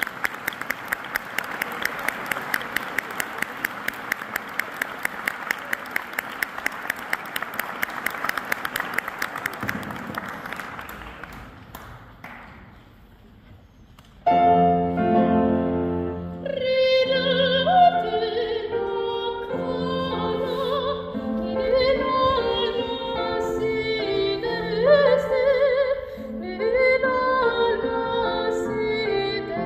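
Audience applause, dense clapping that dies away after about ten seconds. After a short lull a piano starts, and a couple of seconds later a soprano sings with vibrato over the piano accompaniment.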